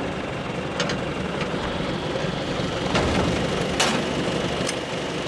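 Farm tractor engine running steadily as it tows a grain wagon, with a few brief sharp clanks and rattles.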